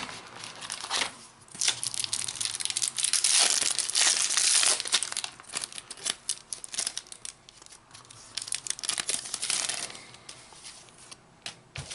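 A Topps Mega Match Attax trading card pack wrapper crinkling and tearing as it is ripped open by hand. The sound is loudest about three to five seconds in, followed by lighter crinkling as the cards are pulled out.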